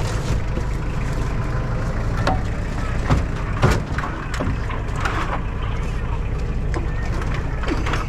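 Tractor engine running steadily, with several sharp metal clanks and knocks over it.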